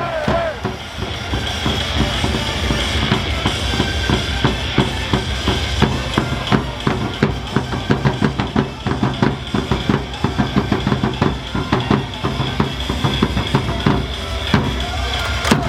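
Cheer-squad drums beating a fast, steady rhythm, about four hits a second, in a batter's cheer song.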